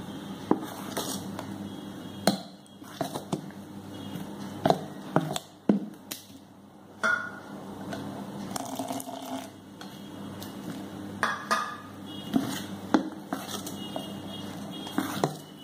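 Steel spoon stirring thick dosa batter of ground urad dal and rice in a stainless-steel bowl, clinking and knocking irregularly against the bowl's side.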